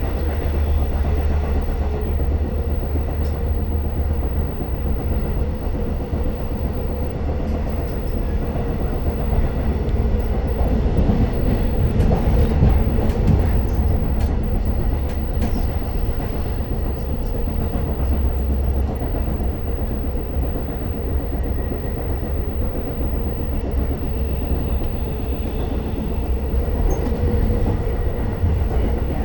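Long Island Rail Road passenger train in motion, heard from inside the car: a steady low rumble with scattered light clicks from the wheels on the rails.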